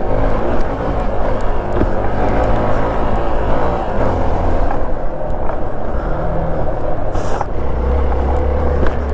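Motorcycle engine running under load while climbing a rough dirt trail, mixed with tyre and wind noise; its pitch shifts a couple of times as the throttle changes.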